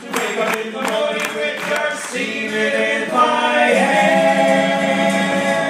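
Several male voices singing together in harmony, the ending of a comic sea-shanty-style song, settling into a long held final chord over the last two seconds.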